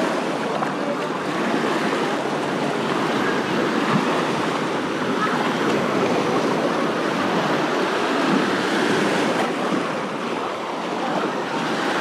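Small waves breaking and washing up over a sandy shore, a steady surf.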